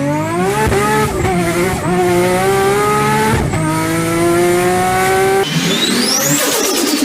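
Nissan RB26DETT twin-turbo straight-six accelerating hard, its note climbing in pitch and dropping briefly at three upshifts. About five seconds in the engine note cuts off and a high whistle rises and then falls.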